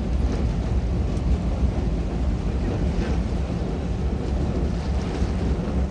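Wind buffeting the microphone aboard a boat out on the water: a steady, uneven low rumble with water noise beneath.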